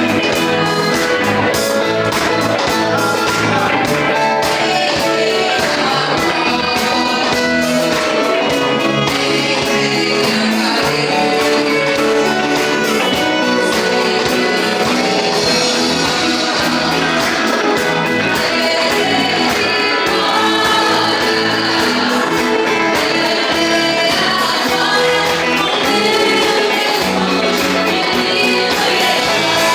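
A live gospel band playing with electric guitars, keyboard and drums under a steady beat, with voices singing.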